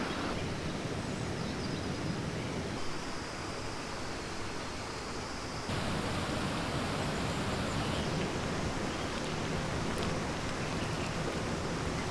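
Steady rush of river water flowing over rocks. Its tone and level shift abruptly a few times where shots change. A faint high steady tone runs through the middle stretch.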